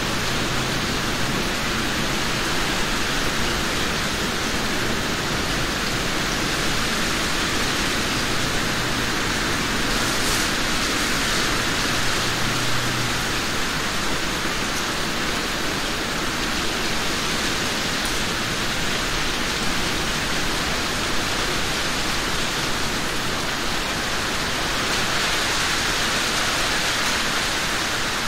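Steady rain falling on trees: an even, unbroken hiss.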